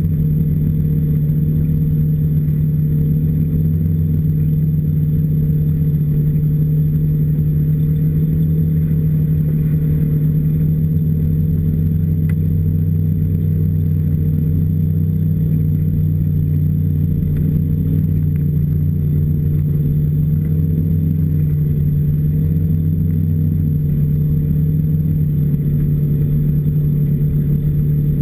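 Snowmobile engine running at a steady speed while the machine travels along a snowy trail, a loud, even drone.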